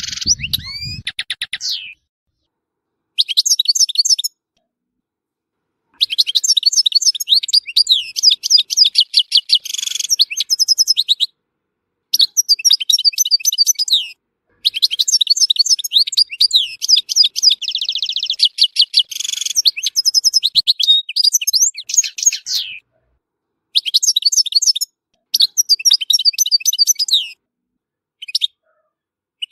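European goldfinch singing: rapid, high twittering phrases of chirps and liquid trills, broken by short pauses between phrases.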